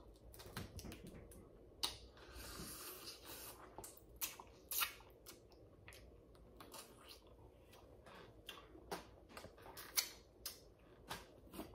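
Boiled crawfish shells cracking and snapping as they are peeled apart by hand and eaten: a string of sharp, irregular clicks, the loudest about two, five and ten seconds in.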